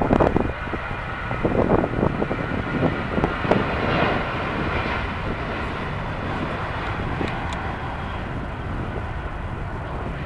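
Twin CFM56 turbofan engines of a Boeing 737 at takeoff thrust: a steady jet roar through the takeoff roll, rotation and initial climb. Wind buffets the microphone in the first couple of seconds.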